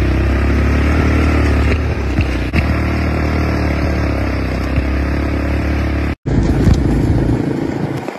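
ATV engine running steadily under way, with a brief cut-out about six seconds in before it resumes.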